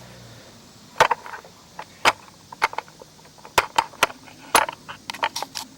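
About a dozen sharp, irregular clicks and clacks of hard tools against hard plastic, starting about a second in, as a flat-tip screwdriver is handled to pry at a small plastic cap on a backpack blower's throttle cable housing.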